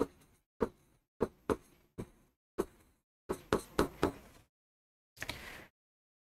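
Pen tip tapping on a whiteboard screen during handwriting: about ten sharp taps over four seconds, some in quick pairs. A brief soft rustle follows about five seconds in.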